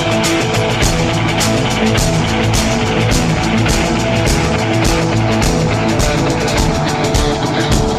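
Instrumental rock music: guitars over a drum kit keeping a steady beat, with no singing.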